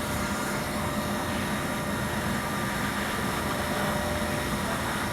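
Leister hot air welder running steadily, its blower fan pushing hot air out through the welding nozzle as a patch is welded onto vinyl tent fabric.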